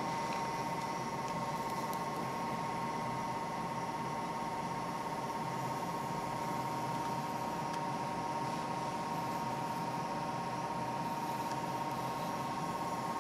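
Steady hum and hiss of aquarium equipment, with a constant high tone.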